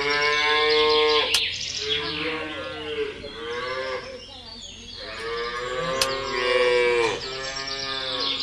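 Cow mooing: several long, drawn-out moos one after another, each falling in pitch at its end.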